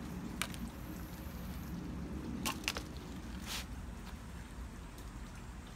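Hands working potting soil and leaves around a croton in a planter: a few short crackles and rustles over a low, steady background rumble.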